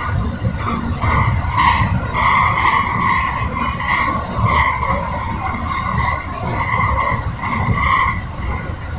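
223 series electric train running along the rails, heard from just behind the cab: a steady low rumble of wheels on track, with a high two-pitch squeal that keeps swelling and fading.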